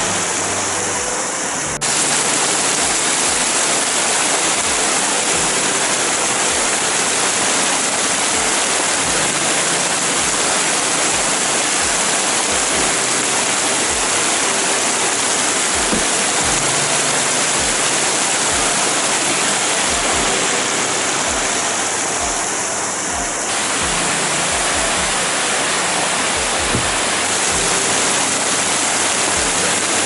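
Loud, steady rush of water from a mountain waterfall and rocky stream, an even hiss. The sound shifts abruptly about two seconds in and again about 23 seconds in.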